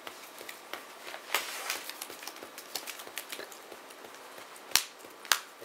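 Sleeved trading cards being handled on a playmat: an uneven string of light taps, clicks and slides as cards are picked up, turned and set down, with a sharp, louder click a little before the end.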